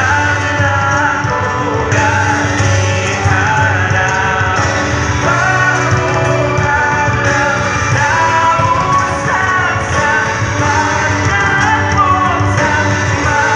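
A live band plays an amplified pop song through a PA system, with a singer's voice over guitars.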